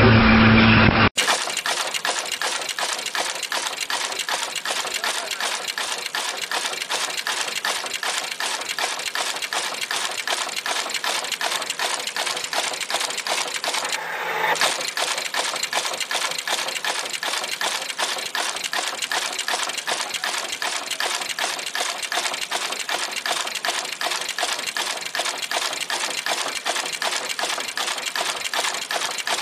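Automatic PCB component insertion machine running: a fast, steady, even clatter of mechanical clicks as its head inserts through-hole parts.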